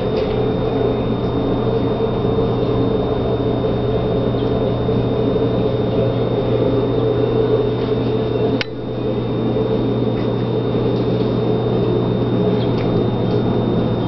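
Steady mechanical hum with a thin high whine over it, broken once by a click and a brief drop in level a little past halfway.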